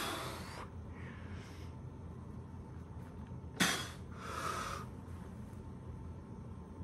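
A man's forceful breaths out through pursed lips while flexing: a sharp puff right at the start and another about three and a half seconds in, each trailing into a softer hissing exhale.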